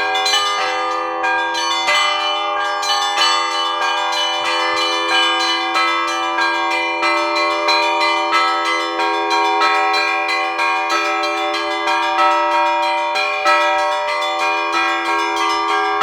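Russian Orthodox church bells rung in a festive peal: many bells struck in quick succession over the steady ringing of the larger bells.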